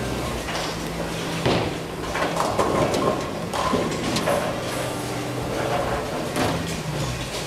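Bowling alley din: knocks and clatters of balls and pins from the lanes, heard several times, over a steady hum of pinsetter and ball-return machinery.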